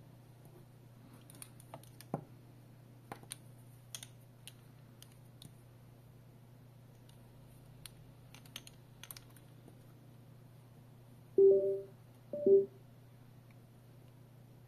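Small clicks and handling noises of plastic earphone parts and cable, then two short electronic beeps about a second apart near the end from the bone conduction earphones.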